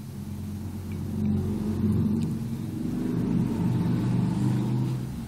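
A low rumbling, motor-like drone that swells about a second in and eases off near the end.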